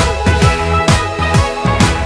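Pop song playing an instrumental passage with no singing: a punchy kick drum about twice a second over a steady bass line.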